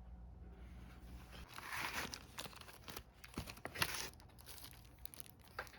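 Plastic packaging crinkling in bursts as it is handled, with one sharp click a little after halfway.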